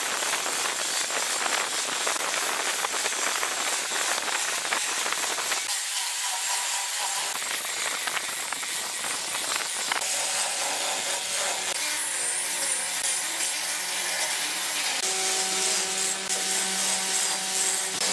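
Angle grinder running with an abrasive disc pressed against concrete, grinding the countertop surface in a steady hissing rasp. The sound shifts a couple of times, and in the later part a steady motor hum comes through under the grinding.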